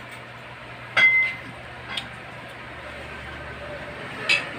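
Tableware clinking: a sharp clink with a brief ringing tone about a second in, a lighter tap a second later and another clink near the end, over a low steady hum.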